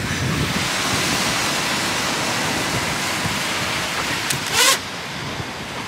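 Surf washing on the beach with wind on the microphone, a steady rushing hiss. About four and a half seconds in comes a short rising, wavering squeal, the loudest moment, and after it the rush is quieter.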